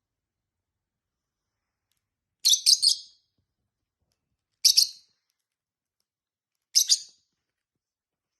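Pet lovebird chirping: three short bursts of high chirps about two seconds apart, each a quick run of a few notes.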